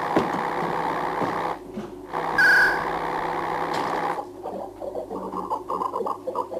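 Sci-fi electronic sound effects of a computer control room: a steady electronic hum that drops out briefly, a short high beep about two and a half seconds in, then from about four seconds in a rapid pulsing electronic warble.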